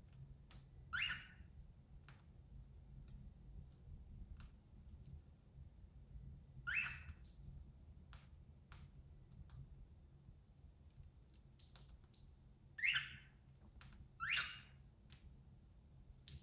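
A cockatiel husking millet seeds off a millet spray: scattered sharp little clicks, with four short high chirps over them.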